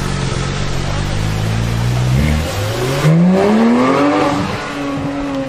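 Supercar engine accelerating. The engine note holds and creeps up, breaks off suddenly about two seconds in, then climbs steeply and levels out at a higher pitch.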